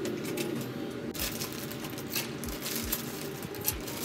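Water boiling in a pot on a gas stove: irregular bubbling with scattered pops and clicks over a steady hiss.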